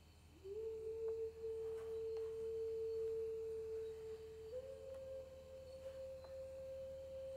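A single clear, steady tone that slides up into a held note about half a second in, then steps up slightly to a higher pitch about four and a half seconds in and holds there, with a few faint clicks.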